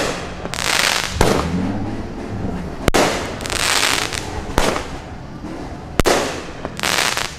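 Aerial fireworks going off: five sharp bangs about every one and a half seconds, with longer hissing stretches between some of them.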